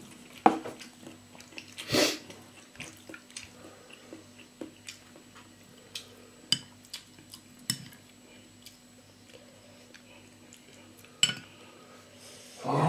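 Mealtime table sounds: a spoon clinking on a small bowl and plates, light chewing, and scattered small knocks of tableware. A low steady hum runs underneath.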